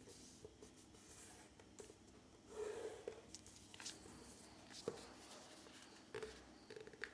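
Sheet of paper being folded and creased by hand: faint rustles and crinkles, with a louder rustle about two and a half seconds in and a sharp crease snap near five seconds.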